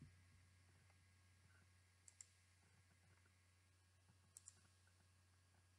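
Near silence with a faint steady low hum, broken twice by a pair of faint computer mouse clicks, about two seconds in and again about four and a half seconds in.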